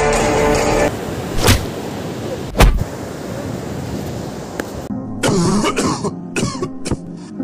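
Two heavy blows about a second apart, the second the loudest, over a steady hiss. They are followed by a man coughing and groaning in short broken gasps, as a beaten man lying on the ground would.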